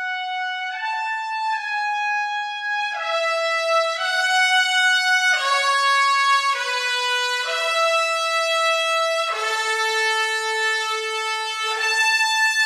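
Sampled trumpets from the Cinematic Studio Brass library playing a slow legato line of long held notes, moving to a new pitch every second or so.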